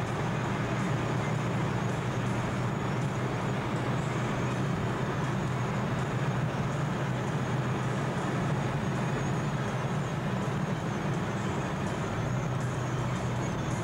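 Steady engine and road noise heard from inside a moving car's cabin: a low hum under an even rush, with no clear change in revs.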